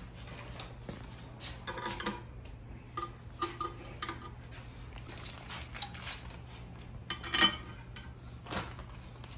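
Metal clinks and taps as a machined metal pulley and its bolts are handled and fitted to the front of a 6.7L Cummins engine, some of them ringing briefly; the loudest clank comes about seven seconds in.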